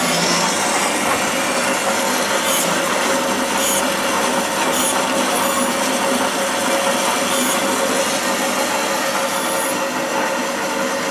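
A BAS 315 band saw running steadily while slicing a carrot into rounds, with several short high hisses as the blade goes through the carrot.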